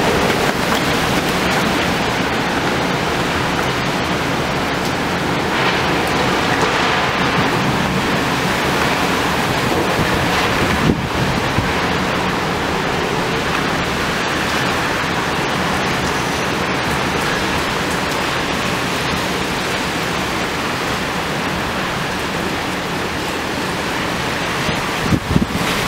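Severe storm wind and heavy rain in a steady, dense rush, with the wind buffeting the microphone. Two short louder bumps come through, one about eleven seconds in and one near the end.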